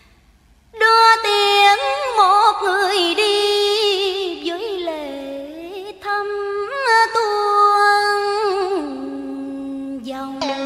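Female voice singing a slow, ornamented melody with sliding notes and vibrato in Vietnamese tân cổ (cải lương) style, starting after a brief pause and settling on a long held low note near the end.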